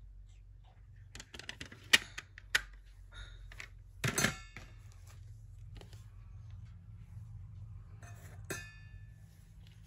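Hard plastic of a CD jewel case being handled: scattered clicks and clacks, a sharp one about two seconds in and the loudest cluster about four seconds in, with faint rustling between.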